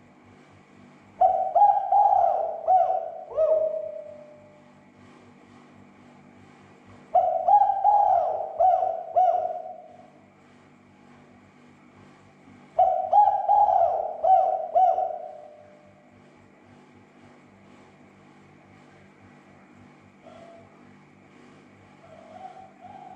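Spotted dove (tekukur) cooing: three loud phrases of several coos each, about six seconds apart, then fainter coos near the end. A steady low hum lies underneath.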